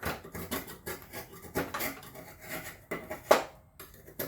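A knife scraping and peeling heat-softened old grip tape off a golf club shaft, in a run of short scratchy strokes, with one sharp click about three seconds in.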